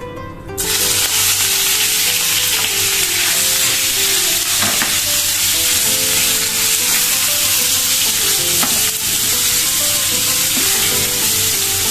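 Raw boneless chicken cubes sizzling in hot oil in a nonstick frying pan as they are stirred with a spatula. The sizzle starts suddenly about half a second in, as the chicken hits the oil, and then holds steady.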